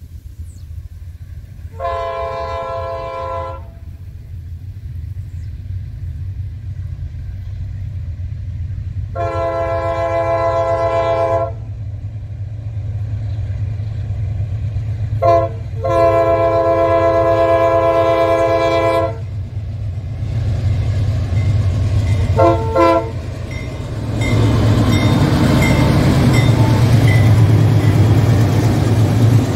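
Diesel freight locomotive approaching and sounding its multi-tone air horn: two long blasts, a short one and a long one, then two quick short toots. The deep diesel rumble grows steadily and turns loud about three-quarters of the way in as the locomotive passes close by.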